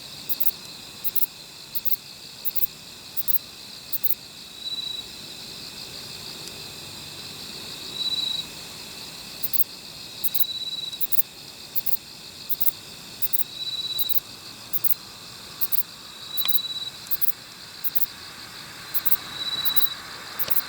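Kobane-himegisu, a short-winged katydid, stridulating: a run of short, very high-pitched chirps about twice a second that pauses for several seconds and then starts again. A fainter steady insect trill runs underneath.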